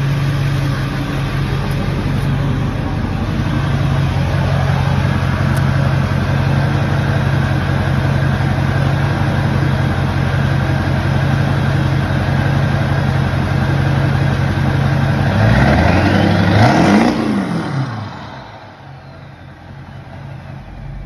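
2000 Ford 7.3 Power Stroke V8 turbo-diesel running steadily through a large exhaust, on a 120 hp racing tune. Near the end it is revved once, its pitch rising and falling, then the sound drops away sharply.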